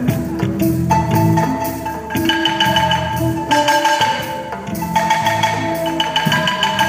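Balafon, the West African wooden xylophone, playing music with mallet-struck melodic notes over lower sustained tones.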